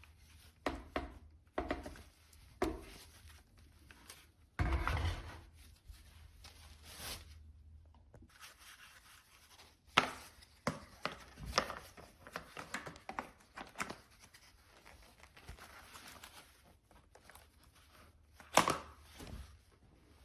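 Scattered clicks and knocks of objects being handled, with a noisy rustle or scrape lasting about a second and a faint steady low hum beneath.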